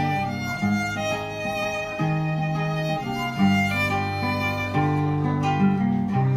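Violin and acoustic guitar duet: the violin plays a bowed melody in held notes over the guitar's plucked accompaniment.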